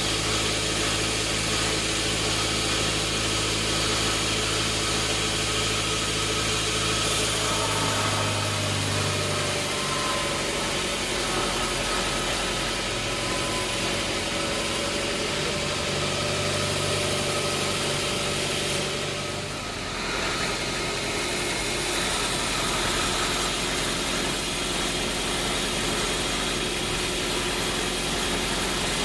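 Sawmill machinery running steadily with an engine-like hum. Its low tone shifts about a quarter and a third of the way in, and there is a short dip in level about two-thirds of the way through.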